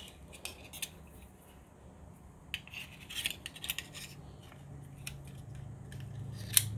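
Light clicks and brief rubbing of small parts of a disassembled iPod Nano being handled by hand, with a cluster of ticks in the middle and one sharp click near the end, over a low steady hum.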